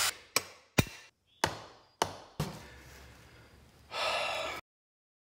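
Five sharp knocks or taps in the first two and a half seconds, each ringing briefly. Then a short burst of hiss about four seconds in that cuts off suddenly.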